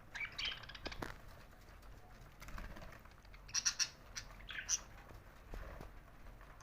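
Budgerigars chirping in short, scratchy calls, loudest in a quick cluster a little past the middle, with light clicks and taps between them.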